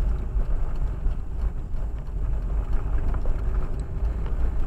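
Car driving, a steady low rumble of engine and road noise heard from inside the cabin.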